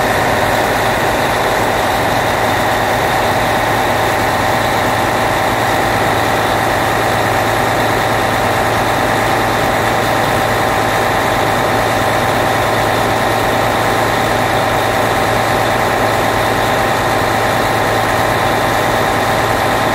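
Turbocharged engine idling steadily, with steady high tones over the engine note. The owner calls the noise turbo flutter and takes it as a sign the turbo needs servicing.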